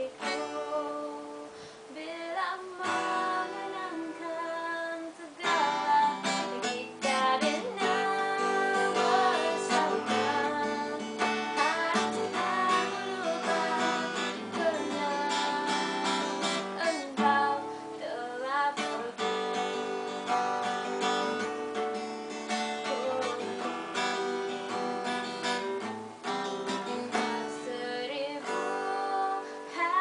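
Acoustic guitar strummed and picked through a chord progression, played continuously with a strong beat of strokes.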